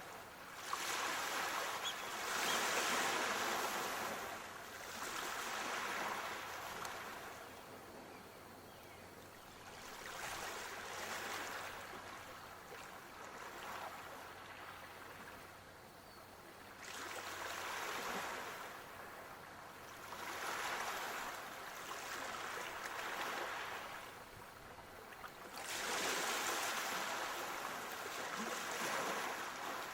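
Waves washing in, a hissing surge that swells and ebbs every few seconds.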